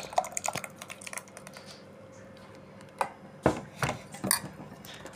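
Thick bel (wood apple) sharbat pulp poured from a pot into a bowl, with wet splats and small clicks in the first second or so. About three to four seconds in come four sharp knocks of a steel pot and ladle against dishes.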